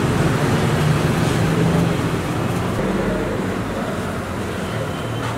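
Steady road-traffic noise: a continuous rumble of passing vehicle engines with road hiss, the low hum shifting as vehicles go by.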